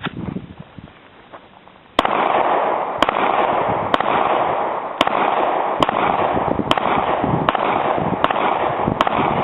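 A string of nine Glock 9 mm pistol shots about a second apart, starting about two seconds in and coming slightly faster toward the end, with a steady rushing noise between them.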